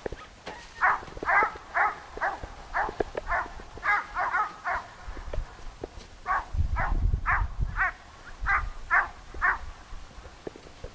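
Search-and-rescue dog barking over and over, about two barks a second with a short break midway: a bark alert that it has found the hidden person.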